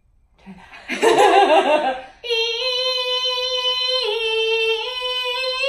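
Laughter about a second in, then from about two seconds a woman singing one long belted note, thinned and placed forward, that dips slightly in pitch and returns.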